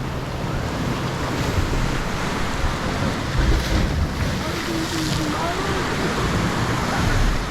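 Sea waves washing on the shore with a steady rush, and wind buffeting the microphone in gusts.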